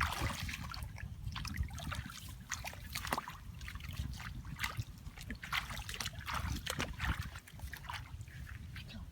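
Shallow water splashing and trickling, with irregular small splashes and drips over a steady low rumble.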